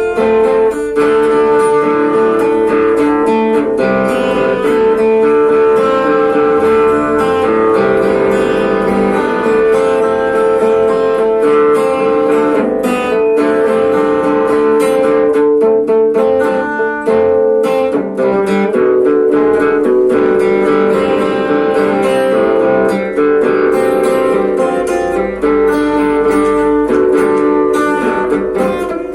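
Tuareg-style guitar music: a plucked guitar playing a busy, repeating pattern over one note that rings on throughout.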